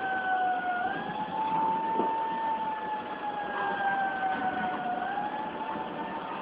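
A siren wailing in a slow cycle: its pitch sinks gradually, then jumps quickly back up about every four seconds, over a steady background rush.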